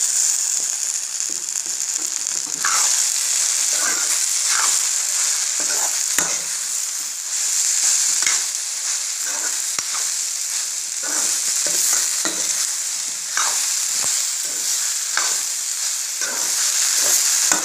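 Cut okra frying in oil in a kadai while a metal spoon stirs and scrapes through it, mixing in the dry spices. A steady sizzling hiss runs under irregular scrapes of the spoon against the pan.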